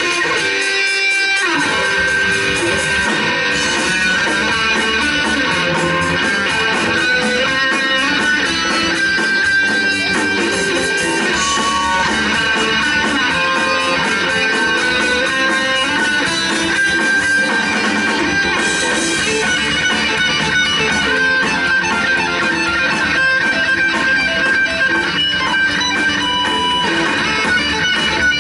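Live band music from a guitar, bass and drums trio, with electric guitar playing sustained notes throughout.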